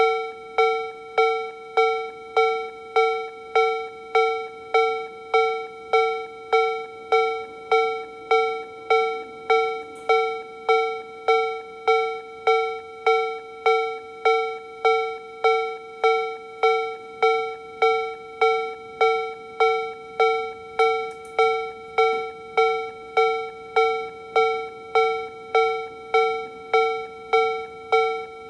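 Japanese level-crossing warning sound from a Toho Denki TA3-VR electronic crossing-alarm generator, playing the Tobu B/C tone at its slow tempo. Bell-like electronic 'kan-kan' strikes repeat evenly, about three every two seconds, each ringing briefly and dying away.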